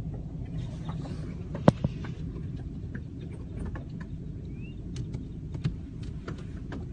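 A large flock of birds giving sharp clicks and short chirps over the steady low rumble of a car. The loudest click comes just under two seconds in.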